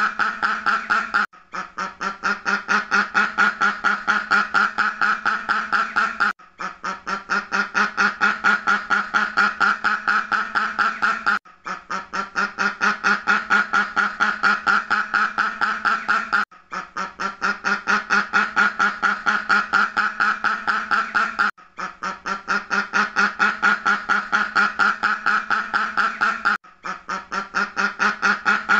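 Duck quacking in a quick, continuous run of about five or six quacks a second. It is a short recording looped, breaking off briefly about every five seconds before starting over.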